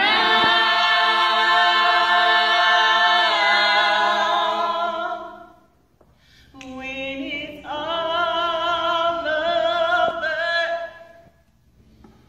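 A small group of voices singing a cappella, holding long notes. The first phrase fades out about five seconds in, and after a short pause a second phrase begins and dies away near the end.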